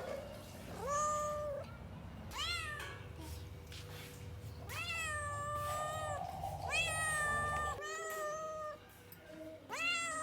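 Domestic cat meowing repeatedly, about six meows: some short and rising sharply in pitch, others long and drawn out.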